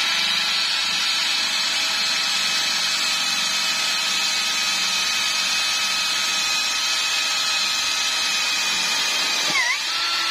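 DeWalt brushless cordless hammer drill driving a self-drilling roofing screw into steel angle bar, its motor giving a steady high whine under load. The pitch dips briefly near the end, then picks up again.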